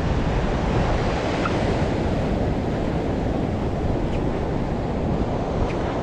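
Ocean surf breaking on the beach, a steady rushing wash, with wind buffeting the microphone.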